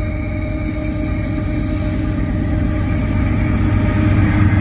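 Train rolling past on the main line: a steady low rumble with thin steady tones above it, growing slowly louder.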